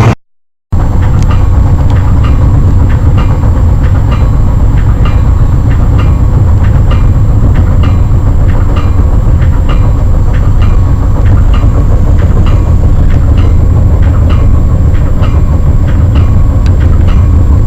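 Passenger train riding at speed: a steady heavy rumble of the railcar with the regular clickety-clack of wheels passing over rail joints, several clicks each second. The sound drops out for a split second right at the start, then runs on evenly.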